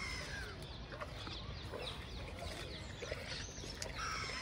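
Animal calls: many short, high, downward-sliding chirps throughout, with a longer squeaky call at the start and another near the end, over a steady low rumble.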